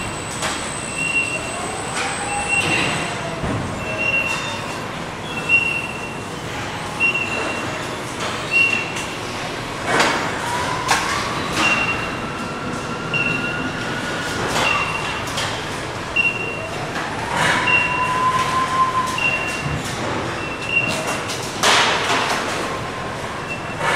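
Automated guided vehicle, a driverless electric pallet truck carrying a pallet of plastic crates, manoeuvring with its warning beeper sounding about once every 0.7 s. A whine rises and falls as it drives and turns, with squeals and a few knocks, the loudest clunk near the end.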